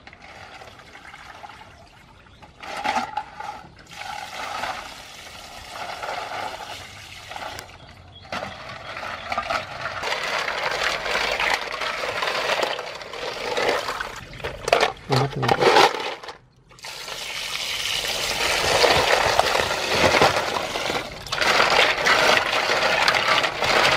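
Apple snails being scrubbed by hand in a metal basin of water: water sloshing and splashing with the clatter of shells rubbing together. Quieter at first, then much louder, with a brief pause around the middle.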